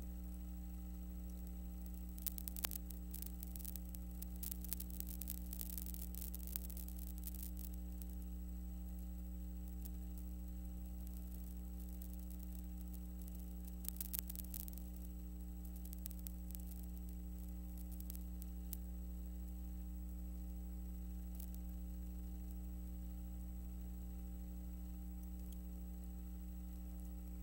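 Steady electrical hum with a faint hiss, broken by crackling clicks, a cluster from about two to seven seconds in and a few more around fourteen seconds in. This is the noise of a transfer of silent film that carries no recorded sound.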